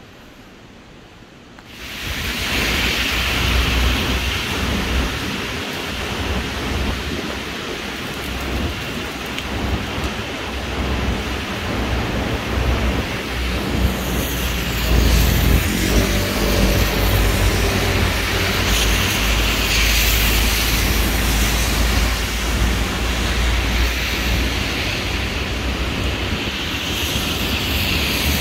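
Steady heavy rain, starting suddenly about two seconds in, with a low rumble underneath that swells around the middle.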